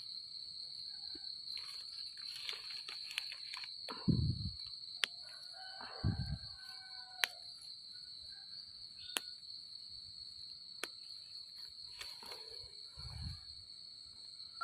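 Night insects chirring steadily at a high pitch. Three dull thumps and some rustling from hands handling mushrooms and a plastic basket break in, about four, six and thirteen seconds in.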